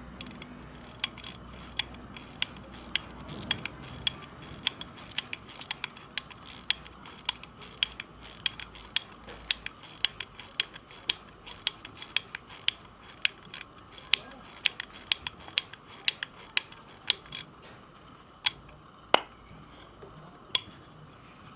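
Winding crown of an Eterna pocket watch being turned, its ratchet click sounding in a steady run of sharp little clicks, about two or three a second. The clicking stops a few seconds before the end, followed by a few louder single clicks.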